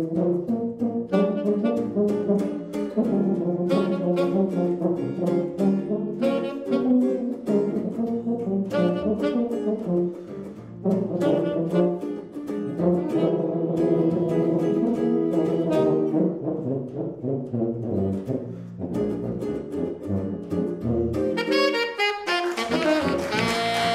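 Jazz trio of tenor saxophone, electric archtop guitar and tuba playing a blues: the tuba takes the lead over guitar chords, and the saxophone comes in with a bright line near the end.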